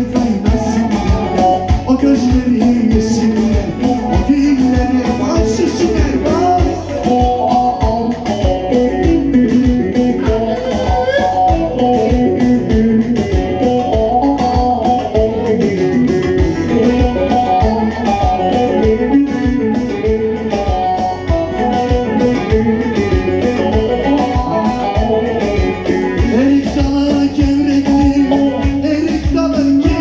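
Live band music with singing: a wavering melody line over a steady, regular dance beat, loud and unbroken.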